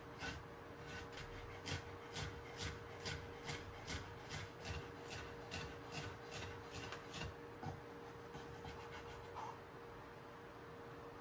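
Kitchen knife slicing carrot and bell peppers into thin strips on a wooden cutting board: even strokes knocking on the board about two a second, stopping about seven seconds in.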